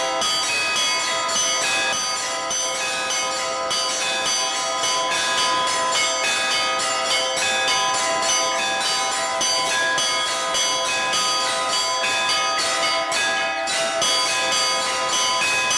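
Church bells of several different pitches rung together in a dense, continuous peal, with several strikes a second and each note ringing on under the next.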